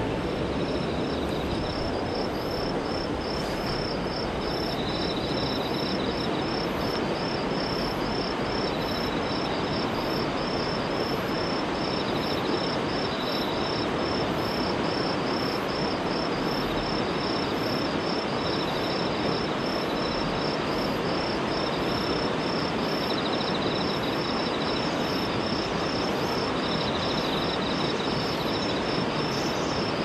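Steady rushing of a mountain river over its rapids, with a high-pitched chirp repeating at an even rhythm over it.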